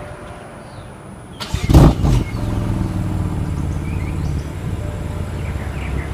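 BMW M4's 3-litre twin-turbo inline-six starting: a loud burst from the engine about a second and a half in, then settling into a steady idle.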